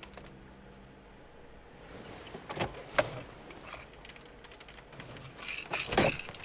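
A car's glove compartment latch clicks open, then there is a quick cluster of sharp clicks and light metallic rattling as things inside it are handled. A single click about three seconds in and the rattle near the end are the loudest moments.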